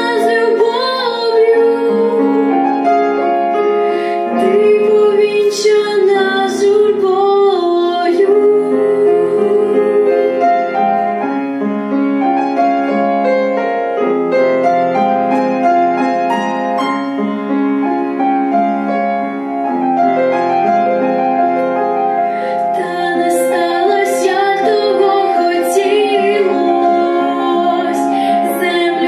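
A young girl singing a Ukrainian song with vibrato, accompanied on a grand piano. Her voice drops out for a piano-only passage in the middle, from about 10 to 22 seconds, and then comes back in.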